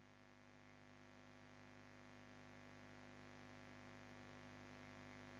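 Near silence with a faint, steady mains hum.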